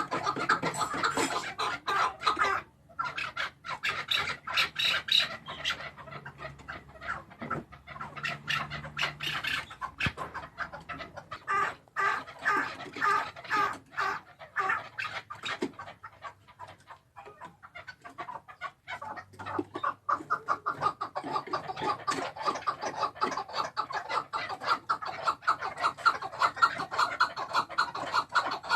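Chukar partridge calling: a long run of rapid clucking notes, thinner in the middle and building again toward the end.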